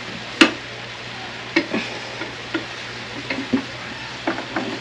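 Ground sirloin sizzling in a frying pan, with a cooking utensil scraping and knocking against the pan as the meat is stirred and turned, in short irregular strokes over a steady hiss.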